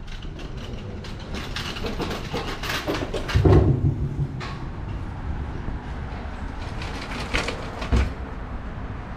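Footsteps on steel floor plates, with irregular metallic clanks and knocks, a heavy thud about three and a half seconds in and another near the end.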